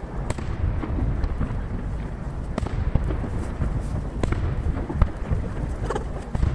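Aerial firework shells bursting in quick succession, heard from a distance: a dense run of sharp booms over a continuous low rumble of echoes. The recording plays at three times speed, which packs the bursts closely together.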